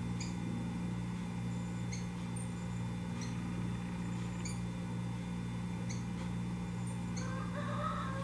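Rufous-collared sparrow giving short, high chip calls every second or so, over a steady low hum.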